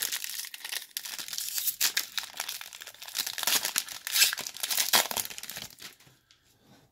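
A 2022-23 Panini Mosaic basketball card pack's plastic wrapper being torn open and crinkled in the hands, a dense crackle that stops about six seconds in.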